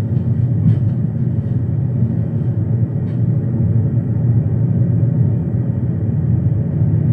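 Steady low rumbling noise with a couple of faint clicks.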